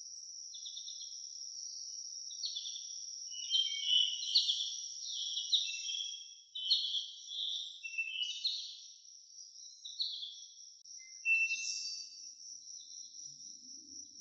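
Songbirds singing in quick runs of short chirps and whistled notes, thinning out near the end, over a steady high-pitched insect trill.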